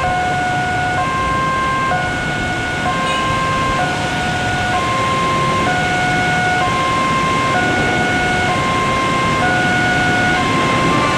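Electronic warning alarm of a railway level crossing sounding, two tones alternating about once a second, with steady traffic noise beneath: the crossing is closed for an approaching train.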